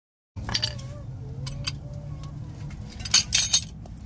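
Metal brake parts clinking and knocking as a brake caliper and its bracket are handled over the rotor, with three loud, sharp clinks about three seconds in, over a low steady hum.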